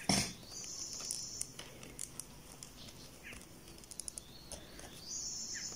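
Faint rustling and light ticks of yarn being worked with a crochet hook, double crochets stitched one after another, with a few faint chirps behind.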